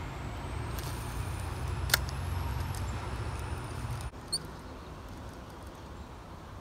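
A steady low rumble with a faint high whine gliding up and back down above it, broken by one sharp click about two seconds in; the rumble falls away at about four seconds, and a short high chirp follows.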